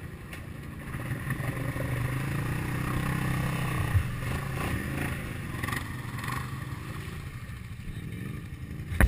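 ATV engine revving under load as the four-wheeler pushes forward through a deep mud hole. The engine builds from about a second in, is loudest around the middle, then eases back.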